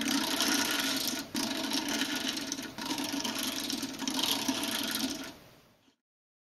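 A Lollipopter kinetic toy being twisted in the hands, its many stacked discs shifting and clicking against each other in a continuous rough clatter. The sound comes in a few stretches with short breaks and fades out near the end.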